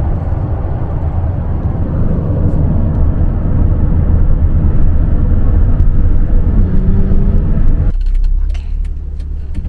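Moving car at road speed: a steady low rumble of road and wind noise. The noise drops abruptly about eight seconds in.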